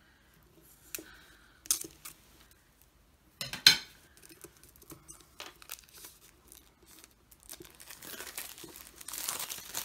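Cellophane shrink-wrap on a tarot deck crinkling and tearing as it is peeled off, building up near the end. Before that come a few sharp knocks of the boxed deck against a wooden tabletop, the loudest about three and a half seconds in.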